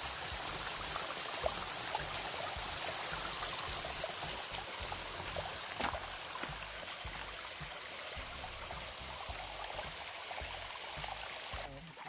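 Mountain stream water running and trickling over rocks, a steady rushing sound, with a light knock about six seconds in; it drops away suddenly near the end.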